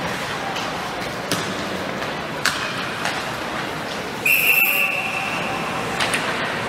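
A referee's whistle blown once, a single short blast of under a second, about four seconds in. A few sharp knocks come before it over steady background noise.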